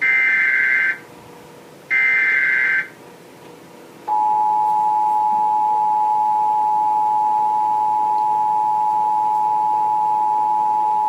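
Emergency Alert System tones announcing a severe thunderstorm warning. First, the last two of the three SAME data header bursts, each about a second of shrill digital tones with a short gap between. About four seconds in, the steady two-tone EAS attention signal (853 and 960 Hz) starts and holds.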